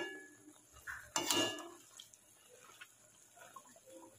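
A perforated steel frying spoon clinks twice against a steel wok, once right at the start and again, louder, about a second in, each strike ringing briefly. Under the clinks runs a faint steady sizzle of malpua deep-frying in oil.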